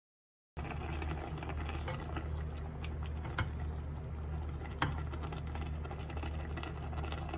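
A steady low hum with a light background hiss, broken by a few sharp clicks. It starts suddenly about half a second in and stops abruptly at the end.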